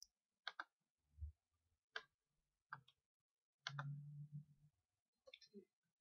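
Faint, scattered clicks of a computer mouse and keyboard, some in quick pairs, with a brief low hum about four seconds in.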